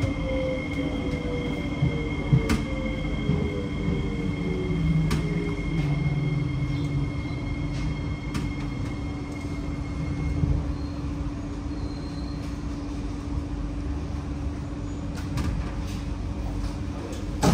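Inside a C151C metro train car, the Fuji Electric IGBT-VVVF traction inverter's whine falls in pitch as the train slows and dies away a few seconds in. After that the car carries on with a steady electrical hum, a low rumble and a few sharp clicks and knocks.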